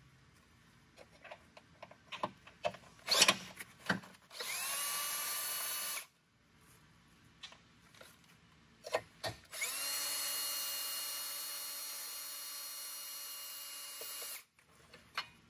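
A cordless power driver with a 10 mm socket unscrews the bolts of a 12V battery hold-down bracket. There are clicks and knocks as the socket is fitted onto the bolts. Then the driver spins up to a steady whine twice, once for about two seconds and once for about five seconds.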